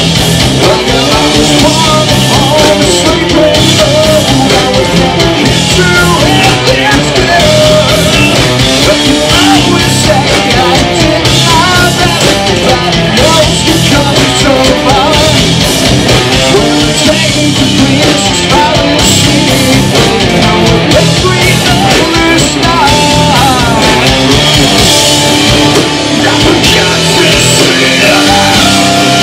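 Live rock band playing loud: electric guitars and a drum kit, with a singer on the microphone.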